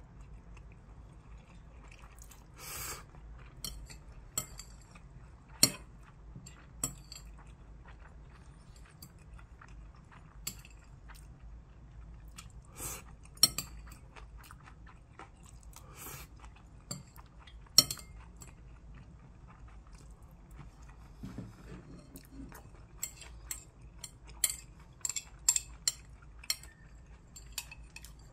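Close-up eating sounds: chewing stir-fried ramen, with metal chopsticks clicking and scraping against a ceramic bowl. There are sharp clinks every few seconds and a quick run of them near the end.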